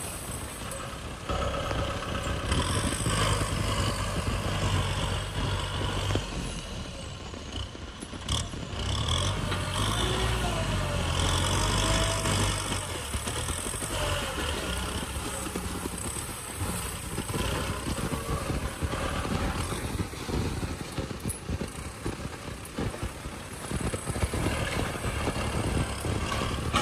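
Kubota M6040 tractor's diesel engine running under load as its front dozer blade pushes soil and stubble, the sound swelling and easing as the load changes.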